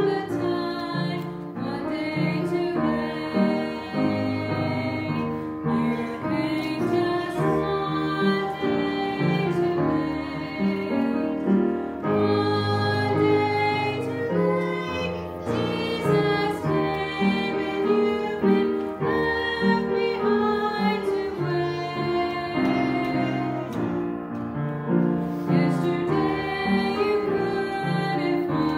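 Two women singing a gospel song together over instrumental accompaniment, the song running on without a break.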